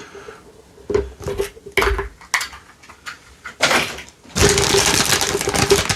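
Plastic toy capsule and its contents being handled, with a few sharp clicks and knocks, then plastic packaging crinkling steadily from about four seconds in.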